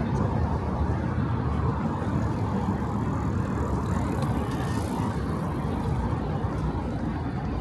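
Steady city street traffic noise: cars running past on the road.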